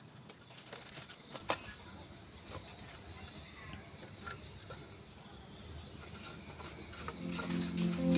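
Small brush scrubbing over the plastic casing of a portable CD player, a faint scratchy rubbing with light plastic clicks and one sharper tap about a second and a half in. Background music fades in near the end and grows louder.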